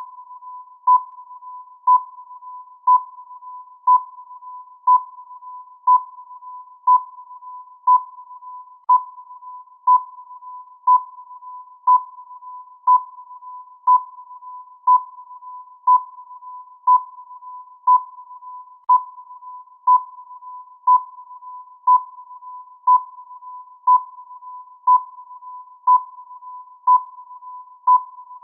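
Countdown timer sound effect: a sharp electronic beep once a second, all at one mid pitch, over a steady quieter tone at the same pitch.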